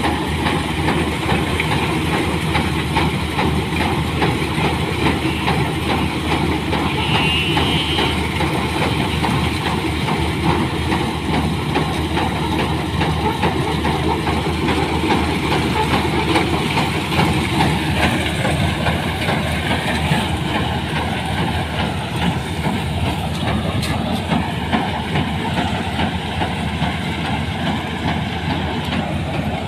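New Holland TC56 combine harvester running steadily close by, its engine drone and machinery noise continuous without a break.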